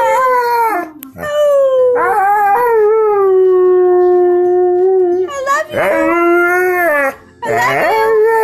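Dog howling in four drawn-out calls. The second lasts about four seconds, sliding down in pitch and then holding steady, and two shorter howls follow it.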